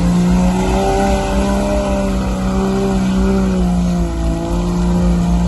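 Off-road vehicle's engine held at high revs, its pitch wavering slightly and dipping briefly about four seconds in, over a steady rushing noise.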